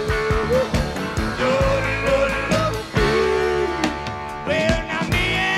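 Background music: an up-tempo band tune with a steady drum beat and a gliding lead melody, with no words sung.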